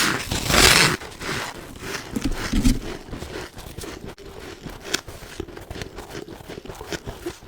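A mouthful of freezer frost crunching loudly for about the first second, followed by quieter chewing with small, irregular crackles of the powdery ice.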